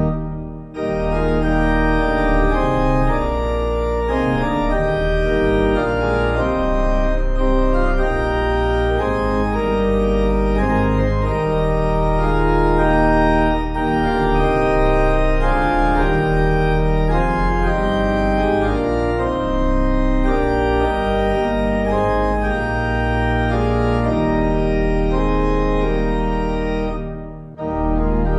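Church organ playing a hymn tune in sustained chords, breaking off briefly about half a second in and again near the end between verses.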